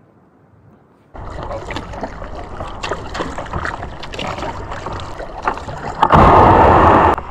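Kayak paddle strokes in calm lake water: splashing and dripping from the blades that starts about a second in. A louder rush of noise lasting about a second comes near the end.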